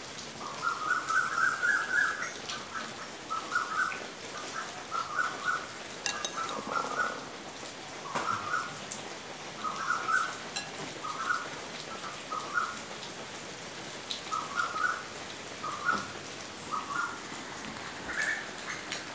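A bird calling in short chirping phrases, repeated about once a second, over the steady hiss of falling rain.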